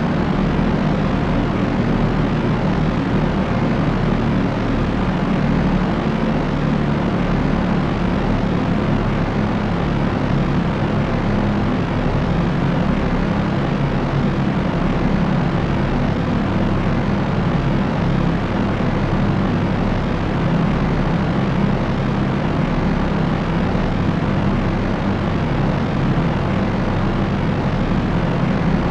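Propellers of a propeller airplane droning steadily: a constant, unchanging rushing noise with a strong low hum.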